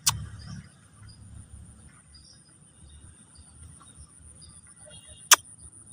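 A high, steady insect trill, pulsing evenly, over a low rumble, with two sharp clicks: one at the start and a louder one about five seconds in.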